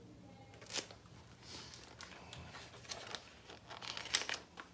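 Pages of a large picture book being handled and turned: paper rustling and crinkling, with a sharp click a little under a second in and louder crackling rustles near the end.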